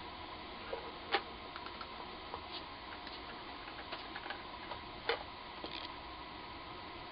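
Scattered clicks and light knocks of dust-extractor parts and packaging being handled, over a steady background hiss; the sharpest knocks come about a second in and about five seconds in.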